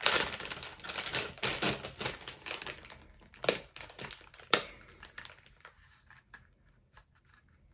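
Plastic soft-bait packaging rustling and crinkling as it is opened and a lure is taken out, with two sharp clicks about three and a half and four and a half seconds in. The handling thins out to a few faint ticks near the end.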